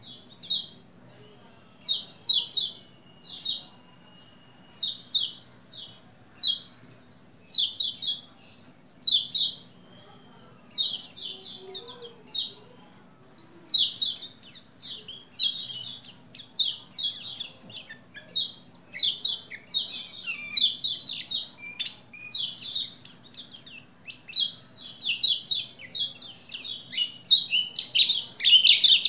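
Pleci Lombok white-eye singing in short, rapid chirping phrases. They come about one every second or two at first, faster from about ten seconds in, and run together near the end.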